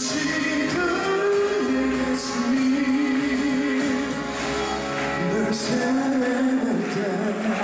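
Male singer singing live into a handheld microphone over instrumental accompaniment, holding long notes.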